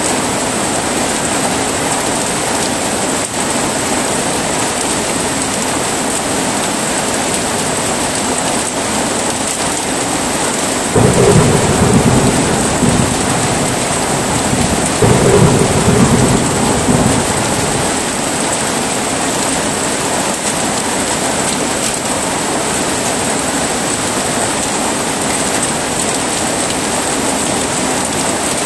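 Heavy rain falling steadily, with two rumbles of thunder about eleven and fifteen seconds in.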